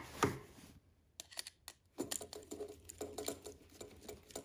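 Light, irregular clicking and tapping of hands fitting a wire's spade terminal under an electrical receptacle's terminal screw.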